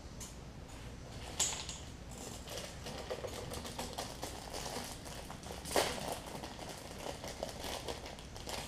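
A small plastic parts bag crinkling and crackling as it is handled and opened, with many small clicks and two louder crackles: about one and a half seconds in and near six seconds.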